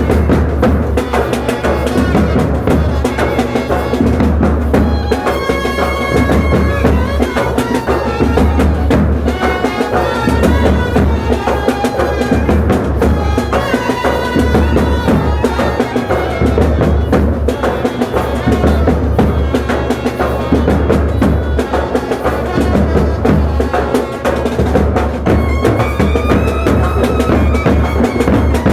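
Dasara festival band music: loud drums playing a steady, driving rhythm under a wind instrument carrying a melody.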